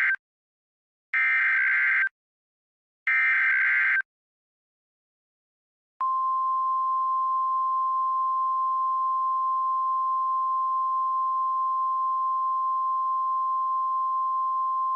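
Emergency Alert System tones: the tail of one digital SAME header burst and two more buzzy data bursts of about a second each, then after a short pause a single steady attention tone lasting about nine seconds that cuts off sharply. Together they open a new alert message.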